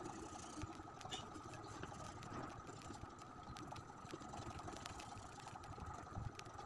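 Faint scratching of a colored pencil shading on drawing paper, with light ticks, over a steady background hum.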